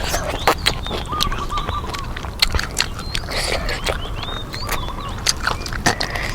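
Short calls of birds repeating in the background, with scattered sharp crunching clicks of deep-fried chicken being bitten and chewed.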